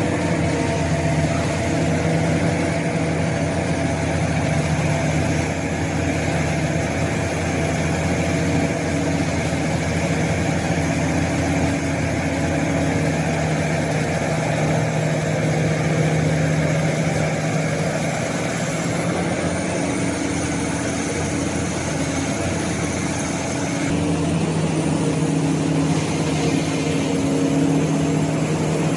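Heavy diesel machinery running steadily at a constant pitch, with a faint high whine over it, as a large hydraulic excavator loads coal.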